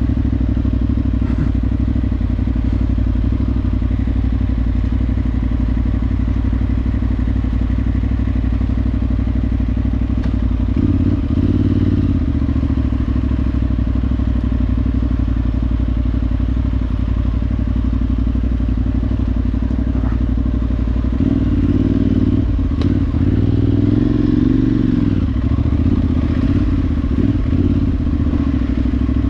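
Parallel-twin adventure motorcycle engine running under way off-road, its note rising and falling briefly about ten seconds in and again several times in the last third as the throttle is worked.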